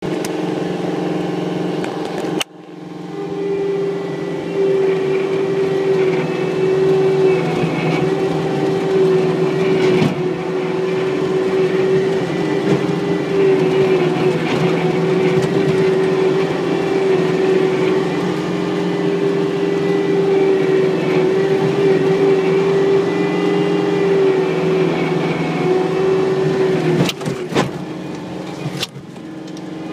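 Diesel engine of a Caterpillar machine running steadily under load while it pushes snow with a 10-foot snow pusher, heard from inside the cab. A steady high tone sits over the engine from about three seconds in until near the end, with a few knocks near the end.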